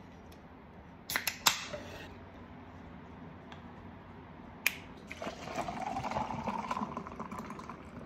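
A soda can's ring-pull clicks open about a second in, with a brief fizz, and another click follows near the middle. Then soda and a bottled drink pour into a plastic tumbler over ice, the pouring sound rising in pitch as the cup fills.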